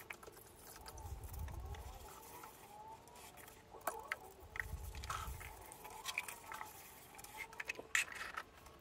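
A sponge and cloth in rubber-gloved hands rubbing and scraping over a plastic windowsill, with scattered small knocks and taps, over a faint steady hum.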